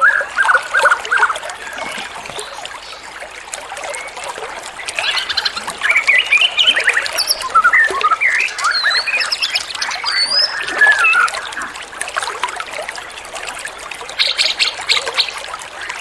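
Small songbirds chirping and whistling in quick, overlapping phrases with short rising and falling notes, over a steady hiss. The calls are busiest in the middle. This is a masteran recording of small birds' song, used to teach phrases to caged songbirds such as the white-rumped shama.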